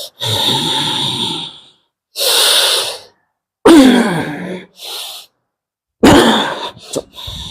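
A person breathing hard: forceful, hissing breaths in and out, with two drawn-out groans that slide down in pitch, about halfway through and near the end.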